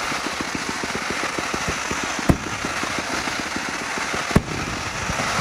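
Fireworks crackling: a dense, rapid run of small pops, with two louder bangs a little over two seconds in and again past four seconds.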